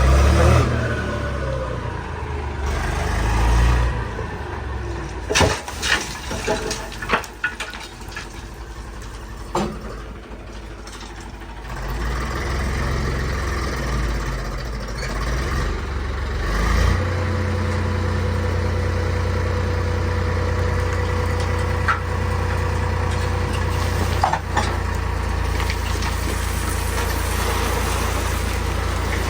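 Diesel engine of a JCB backhoe loader running, with several sharp knocks and clanks in the first half. About seventeen seconds in it settles into a louder, steady drone.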